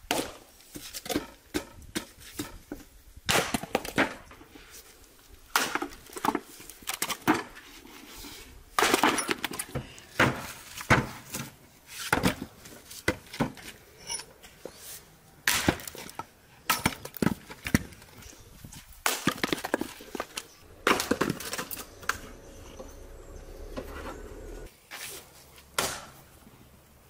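Axe splitting firewood on a wooden chopping block: repeated sharp, irregular chops, some in quick pairs, with the crack of the logs splitting apart.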